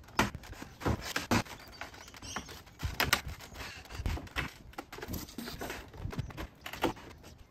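PVC fence slat toppers clicking into the hollow PVC top rail as it is pressed down by hand: a string of irregular sharp clicks and light knocks.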